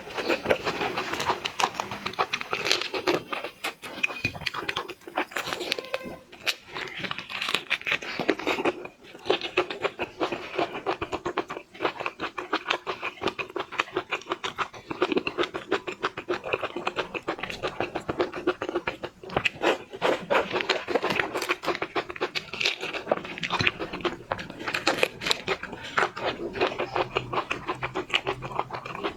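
Close-miked eating of a large prawn: a continuous run of crackles, clicks and chewing noises as the shell is broken and the meat is chewed.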